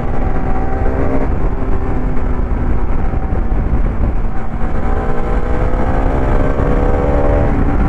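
Motorcycle engine running under way, with heavy wind rumble on the bike-mounted microphone. The engine note climbs slowly from about five seconds in as the bike speeds up, then drops back just before the end.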